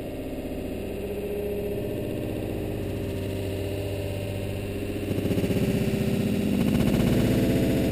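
Steady low droning hum with a fluttering texture, growing louder about five seconds in.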